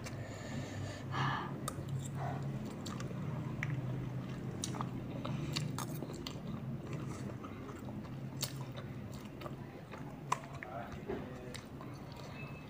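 A child eating chicken noodles close to the microphone: chewing and mouth noises, with scattered sharp clicks, over a steady low hum.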